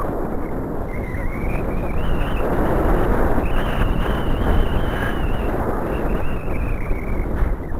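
Steady, loud wind buffeting the microphone of a camera on a tandem paraglider in flight.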